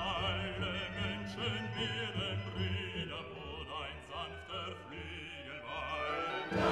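Background music: a classical piece with an operatic singing voice whose pitch wavers in vibrato.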